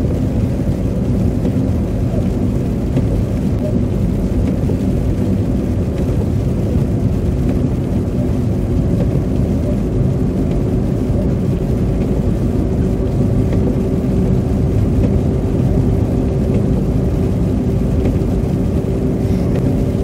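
Steady road and engine noise heard from inside a car driving on a slushy, snow-covered road: a dense low rumble with a faint steady hum.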